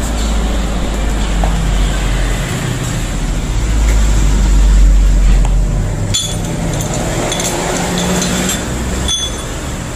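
Metal tools and engine parts clinking as a Yamaha Aerox 155 engine's cylinder head is worked on during disassembly, with sharp clicks about six and nine seconds in. Under them is a low rumble that swells about halfway through and then eases off.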